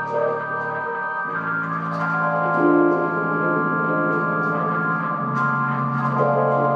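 Organ playing sustained chords over held bass notes. The chord and bass shift at about a second in and again about five seconds in.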